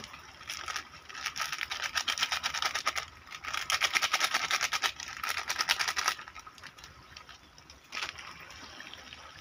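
Chicken karahi sizzling hard in an aluminium pot over a wood fire, a dense crackle that stops abruptly about six seconds in and leaves a faint hiss. A single sharp click near the end.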